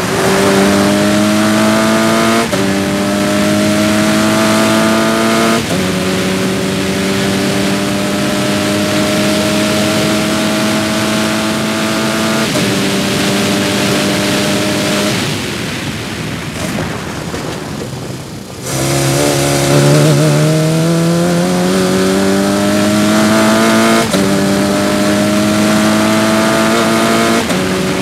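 Onboard sound of a Sports 2000 race car's four-cylinder engine under hard acceleration, its note climbing and then dropping back at each upshift, about every three to seven seconds. A little past halfway the engine note falls away and goes quieter for a couple of seconds. It then picks up from low revs and climbs through the gears again.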